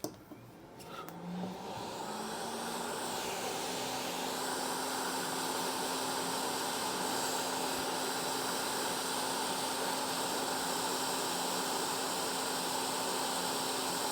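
Hot-air rework gun blowing steadily, its fan spinning up over the first couple of seconds with a slightly rising hum, then holding a constant rush of air while it desolders a shorted capacitor from the motherboard.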